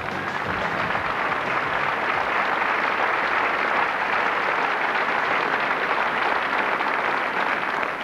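A large audience applauding, swelling just after the song's last notes stop at the start.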